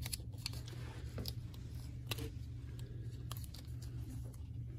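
Faint, scattered clicks and light handling noises from picking up small surgical instruments, over a steady low hum.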